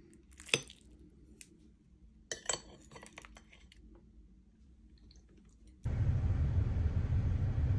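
A metal fork clinks a few times against a glass plate, the sharpest clink about half a second in and a quick cluster around two and a half seconds. About six seconds in a steady low rumble from inside a car cuts in suddenly and is louder than the clinks.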